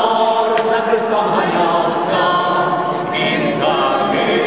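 Chamber choir singing a cappella, several voices holding chords together.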